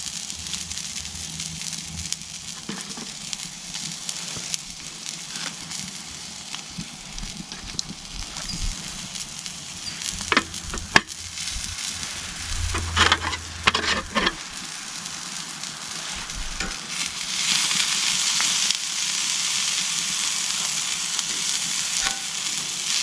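Food frying and sizzling over a campfire, a steady hiss. A few sharp clicks and knocks come about ten to fourteen seconds in, and the sizzle grows louder about seventeen seconds in.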